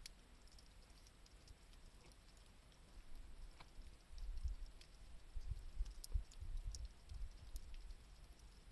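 Wood campfire crackling faintly, with scattered small pops and ticks, over an irregular low rumble.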